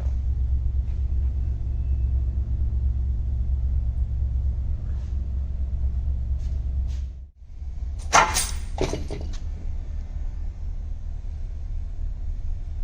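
Steady low rumble with a few light clicks, then, about eight seconds in, a loud clatter lasting about a second while a motorcycle's rear subframe is being unbolted and lifted off.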